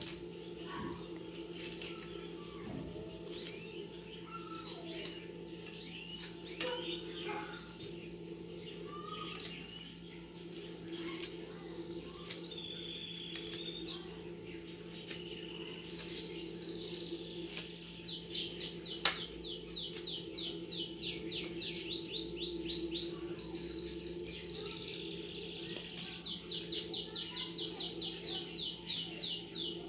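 A small songbird chirping, then singing fast trills of rapid repeated down-slurred notes in the second half, pausing briefly before the last few seconds. Scattered short clicks and a steady low hum lie underneath.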